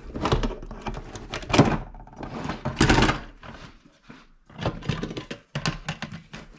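Aviation tin snips cutting through a printed circuit board around its D-sub connector ports, giving a few sharp cracks and snaps, the loudest about three seconds in. Then shorter clicks and knocks as the board is handled against its metal chassis.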